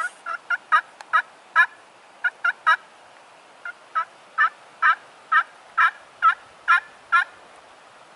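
Turkey call worked by a hunter, giving hen yelps: a few scattered yelps, then a steady run of about two yelps a second.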